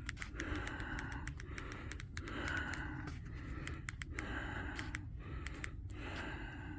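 A person breathing close to the microphone in slow, even breaths about a second long, with scattered faint clicks.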